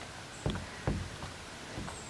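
Footsteps on a dirt trail, a person walking with a canoe carried overhead: three dull thuds at an uneven pace.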